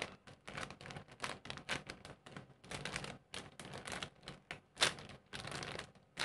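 Clear plastic bag crinkling and crackling in quick, uneven bursts as a squishy toy inside it is handled and squeezed, with one sharper crackle about five seconds in.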